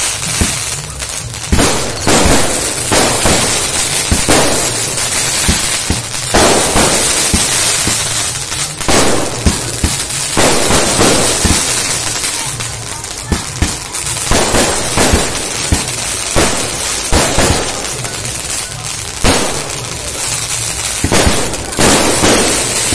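A 200-shot 'Night Flower' sky-shot firework cake firing continuously: a dense run of sharp pops and bangs, with a hissing crackle that swells about every two seconds as shots go up and burst.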